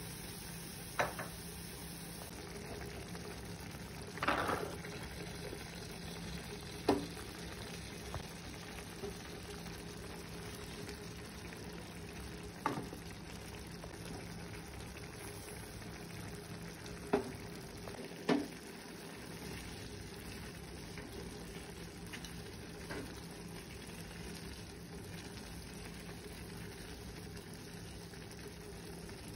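Minced chicken, tomato and vegetable mixture simmering and sizzling steadily in a pan, with occasional sharp clicks of a spatula against the pan.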